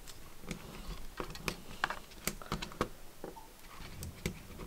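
Irregular light clicks and taps of a T8 Torx screwdriver and fingers working the display hinge screws on a MacBook Pro's aluminium case.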